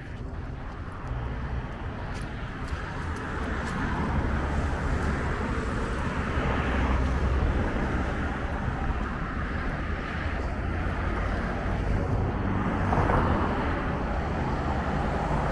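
Street traffic noise: a motor vehicle's engine rumble that builds up over a few seconds and then stays steady.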